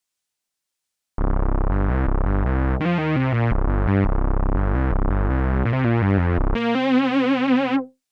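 Cherry Audio DCO-106 software synthesizer, an emulation of the Roland Juno-106, playing a patch recorded dry. It starts a little over a second in with a quick, rhythmic run of notes, then ends on a single held note with vibrato that cuts off near the end.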